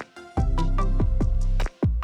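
Background music with a beat of deep drum hits and short melodic notes.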